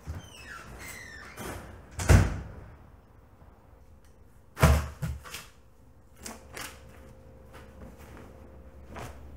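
An apartment door being opened and then slammed shut, a loud bang about two seconds in. A second heavy thump comes a few seconds later, followed by a few lighter knocks.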